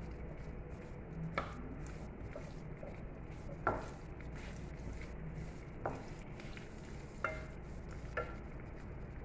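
Onion, garlic and ginger being dry-roasted and stirred in a pan with a little oil: a soft steady sizzle with about five sharp clinks of the stirring utensil against the pan.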